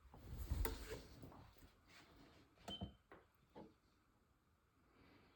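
Faint handling noises from a freefall timing rig: a low rumble in the first second, then a few sharp, separate clicks and knocks, one with a very short high beep-like tone.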